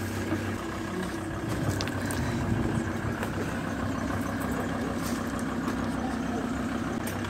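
Vehicle engine idling steadily while a wire dog crate is lifted into the back, with a few light metal rattles from the crate.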